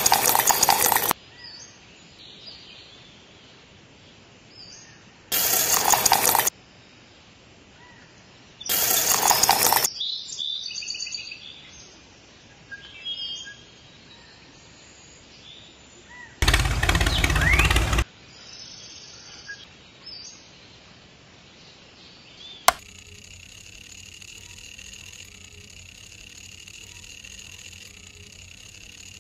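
Four short, loud noises about a second long each, amid quiet handling of wet mortar. About three-quarters of the way in a click, then the small DC motor of a miniature bench grinder runs steadily with a high whine.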